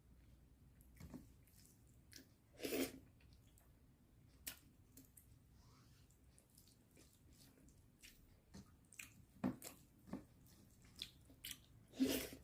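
Close-miked chewing and mouth sounds of a person eating chicken curry with masala poori: irregular soft clicks and wet smacks, with two louder bites or smacks about three seconds in and near the end.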